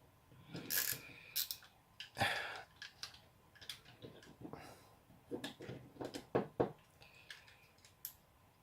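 Irregular small clicks and taps of a screwdriver and plastic shaver parts being handled, with a few louder knocks through the middle.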